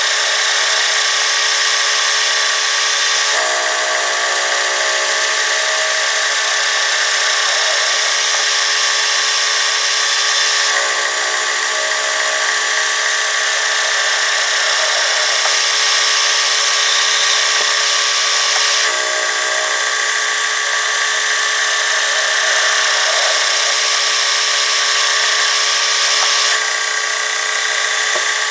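Metal-turning lathe running and cutting a metal disc: a steady machine whine with several held tones, the pattern shifting slightly a few times.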